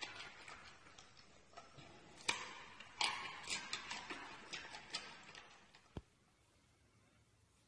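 Giant panda chewing a raw carrot: irregular crisp crunches and clicks that fade and stop about six seconds in, followed by near silence.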